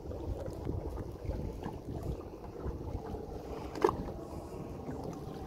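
Small fishing boat at sea: wind buffeting the microphone over the wash of water around the hull, with one short knock just before four seconds in.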